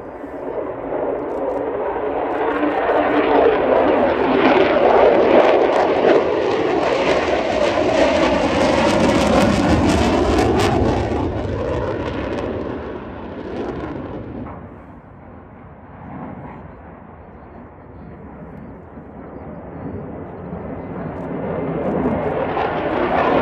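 F-35 Lightning II fighter jet's engine roaring as it makes a low pass. The jet noise swells over the first few seconds and stays loudest until about eleven seconds in. It then fades as the jet climbs away and builds again near the end as it comes back.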